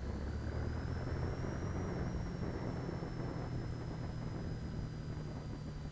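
BMW R1200GS flat-twin engine running steadily while riding, a low drone under rushing wind on the microphone. A faint thin high whine rises over the first second or so, then slowly falls.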